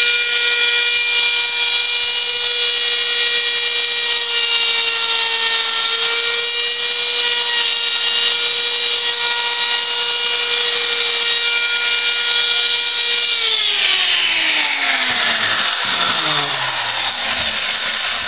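Electric wood router with a 45-degree chamfer bit, running at full speed with a steady high whine while it chamfers the edge of a wooden block. About 13 seconds in it is switched off, and the whine falls steadily in pitch as the motor spins down.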